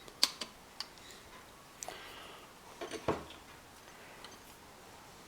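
Light clicks and taps of faucet parts being handled and fitted together, a few in the first second and a louder knock about three seconds in.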